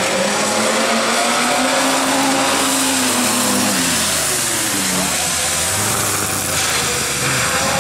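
Bilcross cars racing: engines revving hard, their pitch climbing and dropping with throttle and gear changes, with more than one engine heard at once about midway, over a steady rush of tyre and track noise.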